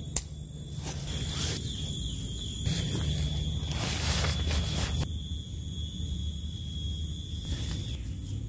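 A plastic tent clip snaps onto a tent pole with one sharp click, followed by a few seconds of rustling and handling of the tent's nylon fabric, which eases off about halfway through. A steady faint high whine sits in the background.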